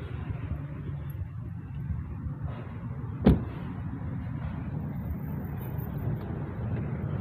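A car door on a 1997 Toyota Camry is shut with a single solid thud about three seconds in. A steady low rumble runs underneath.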